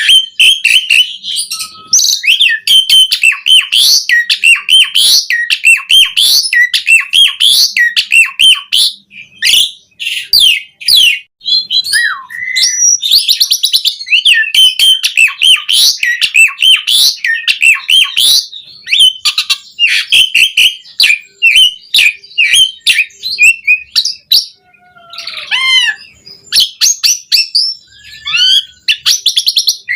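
Asian pied starling (jalak suren) singing nonstop in a rapid, varied stream of chirps, whistles and chattering notes, full of mimicked phrases, with a brief lull about three quarters of the way through followed by a few falling whistles.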